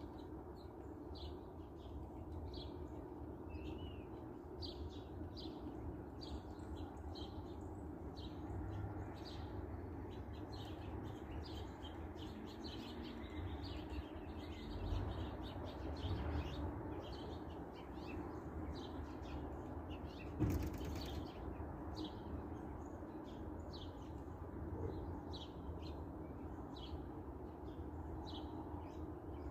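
Small songbirds chirping, many short high notes repeating throughout over a steady low background rumble, with one sharp click about two-thirds of the way through.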